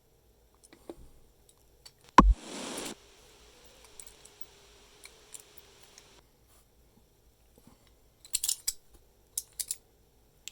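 A padlock being worked with a key: small metal clicks, one sharp loud snap about two seconds in, and bursts of light metallic clicking and jingling near the end.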